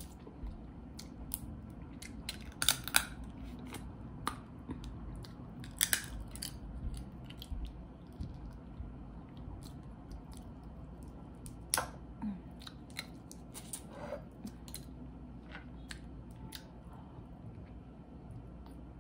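Crawfish being cracked, peeled and chewed close to the microphone: irregular sharp snaps and clicks of shell, the loudest about three and six seconds in, with chewing between.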